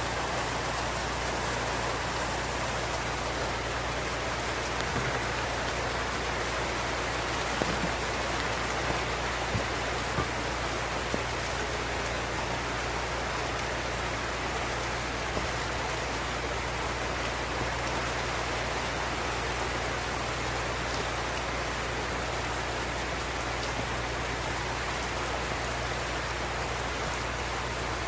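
Steady tropical rain falling, an even dense hiss of rain on surfaces with a few louder individual drops striking close by.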